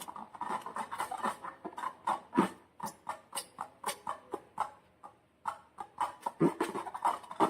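Slime being squished and worked by hand: a run of short wet squelches and sticky clicks, a couple each second, with a brief pause about five seconds in.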